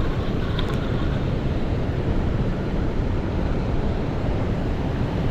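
Steady rush of water pouring through a dam spillway, an even noise with no distinct events.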